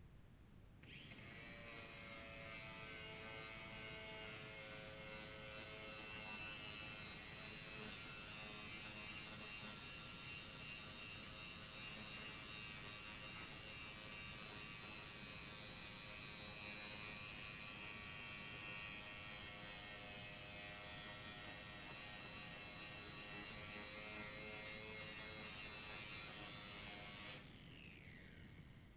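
Angle grinder with a grinding disc running against a lawn mower blade's edge, sharpening it: it starts about a second in, runs with a steady high whine, and is switched off near the end, spinning down with a falling tone.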